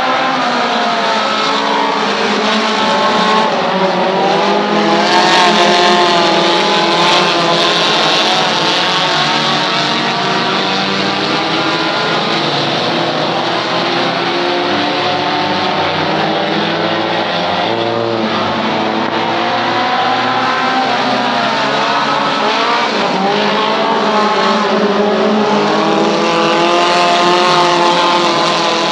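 A pack of dirt-track race cars running laps, several engines revving and easing off so their notes rise and fall together. The sound swells as the cars come past about five seconds in and again near the end.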